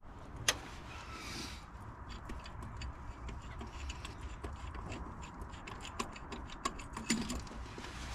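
Light metallic clicks and jangles of hand tools and a harmonic balancer puller being worked off the crank pulley bolt, with a sharper click about half a second in and a brief hiss soon after.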